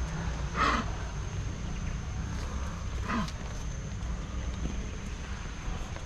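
Two short monkey calls, the first about half a second in and louder, the second about three seconds in. Under them run a steady low rumble and a constant thin high whine.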